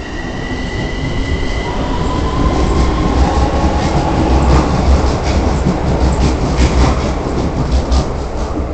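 Keikyu 1000 series electric train pulling away and passing close by. Its motor whine rises in pitch as it accelerates over the first couple of seconds, then the wheels click rhythmically over the rail joints under a loud low rumble as the cars go by.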